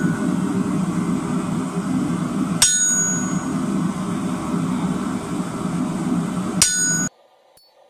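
Two hammer blows about four seconds apart on a hand-held chisel driving a seam into a red-hot square bar on an anvil, each strike ringing high and metallic. A loud steady low noise runs under them and cuts off suddenly near the end.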